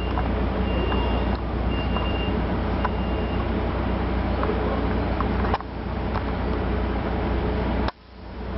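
Commuter passenger train's diesel locomotive running steadily at the platform as it prepares to depart, a steady low drone. Four short high-pitched beeps sound about once a second in the first few seconds. The sound briefly drops out twice near the end.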